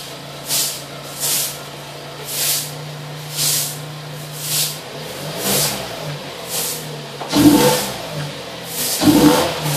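Chevrolet Cruze fitted with aftermarket Stivo headers and its stock resonator and muffler, heard at the exhaust: the engine idles steadily, then is revved a few times from about halfway, the loudest revs near the end. A short hiss repeats about once a second.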